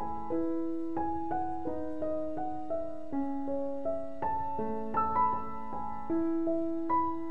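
Background piano music: a gentle, flowing melody of struck notes that ring and fade, at an even pace.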